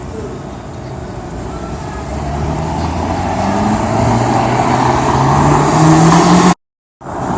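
A motor vehicle's engine accelerating, its pitch rising steadily as it grows louder over several seconds. The sound cuts out completely for about half a second near the end, then resumes.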